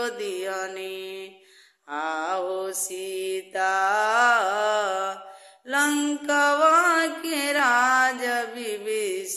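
A woman singing a Bhojpuri devotional bhajan solo and unaccompanied, in long ornamented phrases, pausing twice briefly between them.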